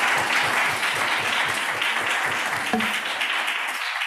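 Audience applauding, a steady spread of clapping that starts to die away near the end.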